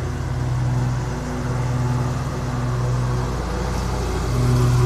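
Lawn mower engine running steadily, its drone swelling and dipping in strength every second or so.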